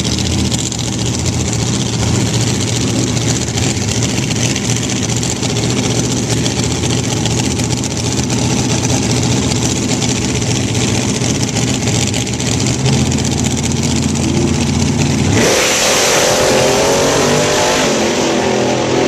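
Dragster engine idling roughly at the starting line, then about fifteen seconds in it goes to full throttle and launches, its pitch climbing as the car accelerates away down the strip.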